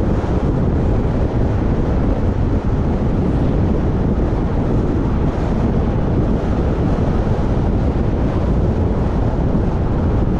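Steady wind rushing over the microphone of a camera moving along a paved road, a continuous low rumble with no breaks.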